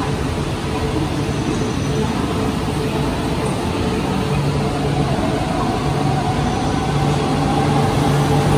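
E4 series Max double-decker Shinkansen starting to pull out: a steady electrical hum, then from about halfway a motor whine that slowly rises in pitch as the train gathers speed.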